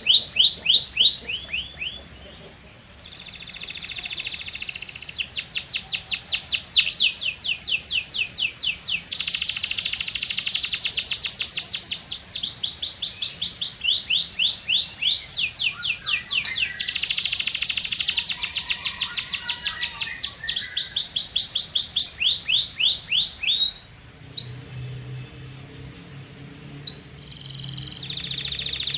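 Canary singing a long song of fast trills, each a rapid run of identical sweeping notes, switching to a new note type every second or two. The song pauses briefly about two seconds in and again near the end, then resumes.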